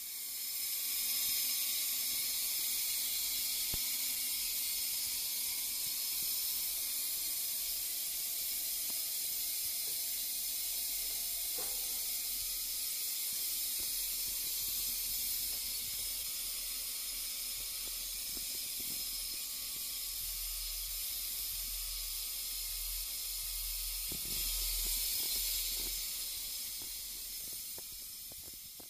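Compression driver under power test, reproducing a steady high-pitched hiss of noise test signal. It fades in at the start and fades out near the end.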